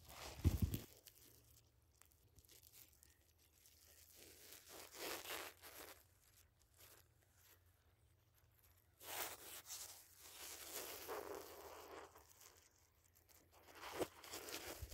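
Faint, intermittent rustling and scraping in dry grass and sand, coming in a few stretches of a second or two.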